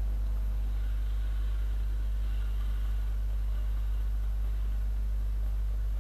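Motorcycle engines idling steadily: a low, even drone with no revving.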